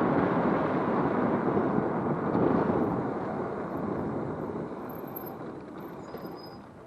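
Wind rush and tyre noise from riding a Romeo Ultra 2 e-bike, dying away over the last few seconds as the bike slows. Near the end there is a faint high squeal from the squeaky brake pads.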